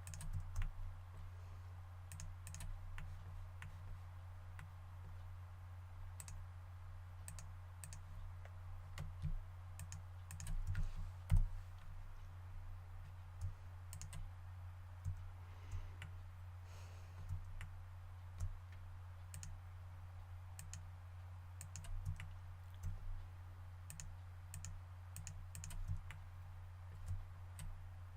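Computer mouse clicks and keyboard keystrokes, scattered and irregular, over a steady low electrical hum.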